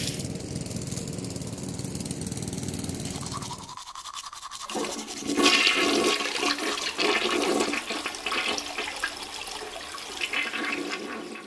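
A toilet flushing, a steady rush of water lasting about three and a half seconds. After a brief pause, teeth are brushed with a toothbrush: an uneven, repeated scrubbing to the end.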